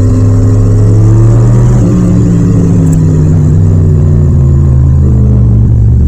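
Yamaha MT-07's 689 cc parallel-twin engine running under way, recorded raw with no wind noise. Its note holds for about two seconds, changes near two seconds in, then slowly falls in pitch.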